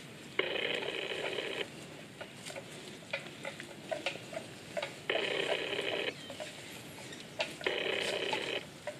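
Water buffalo grazing, tearing mouthfuls of grass in three rasping rips about a second long each, with small clicks and crunches between them.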